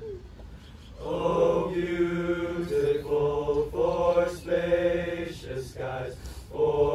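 High-school boys' choir singing long held chords in several parts. The singing drops away briefly at the start and comes back in about a second in.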